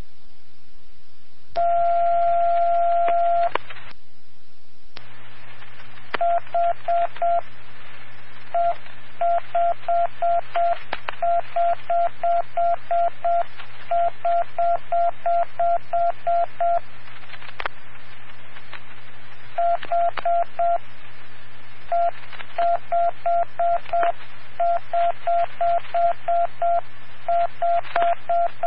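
Fire dispatch radio alert tones: a steady beep lasting about two seconds, then repeated short beeps of the same pitch, about four a second, in runs with short pauses, over radio hiss and hum.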